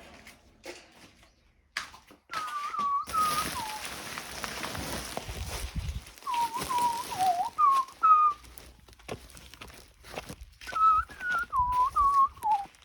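A person whistling a tune in three short phrases of gliding notes. A rushing noise runs from about three to six seconds in, and there are scattered knocks.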